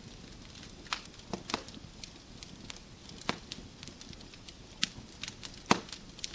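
Wood fire burning in a fireplace: a low steady hiss with irregular sharp pops and crackles from the logs, the loudest pop about five and a half seconds in.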